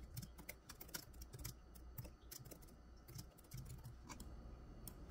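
Faint typing on a computer keyboard: a quick, irregular run of keystrokes.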